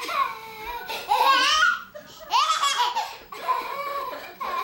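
A toddler laughing in high-pitched squeals, loudest in two bursts about a second in and about two and a half seconds in.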